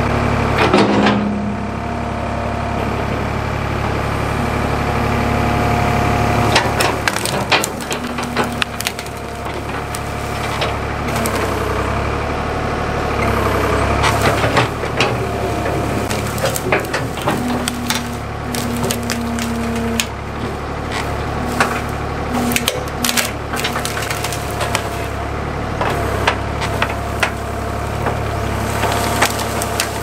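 Ford 555 backhoe's engine running steadily while its bucket and thumb grab and crush a pile of brush and dead branches, with many sharp cracks and snaps of breaking wood from about six seconds in.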